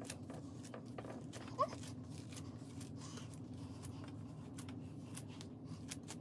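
A pink wide-tooth comb raking through thick, dry natural hair: a scratchy rustle of short crackles with each stroke, over a steady low hum. A brief rising squeak sounds about one and a half seconds in.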